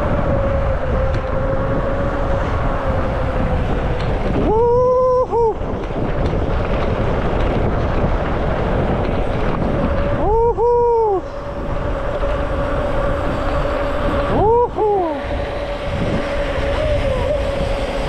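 Electric mountain bike riding over a rough trail: a steady rumble of tyres and wind under a constant whine, broken four times by short squeals that rise and then fall in pitch.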